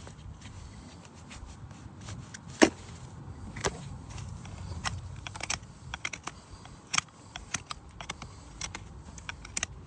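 Farrier's hand tools working on a horse's hoof during foot preparation: irregular sharp clicks and snaps, the loudest about two and a half seconds in and another near seven seconds.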